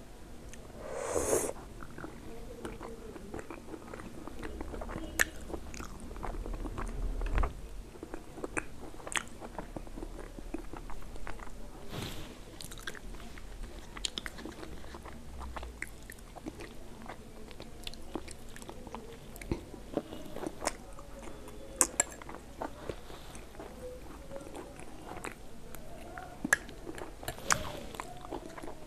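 A person eating close to the microphone: chewing and biting food, with many short sharp clicks and mouth smacks scattered throughout and one louder brief rustling sound about a second in.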